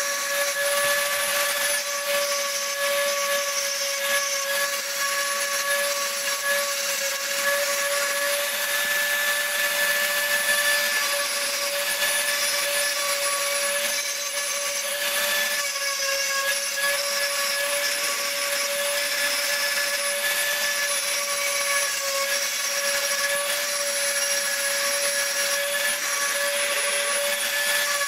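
Dremel rotary tool running at a steady high-pitched whine while its diamond burr grinds between the petals of a rock carving, with a gritty hiss from the stone.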